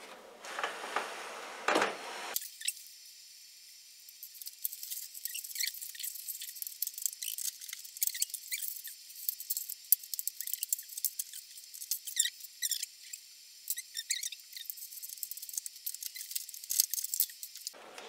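Thin wire scraping and clicking against metal and plastic inside a microwave oven's base as it is pushed in to reach the jammed door-release latch: a run of small, irregular ticks and scratches.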